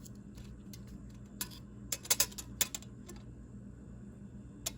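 A scatter of small, sharp clicks and taps, irregularly spaced: a pocket multi-tool being handled and set against a measuring tool to size its blade.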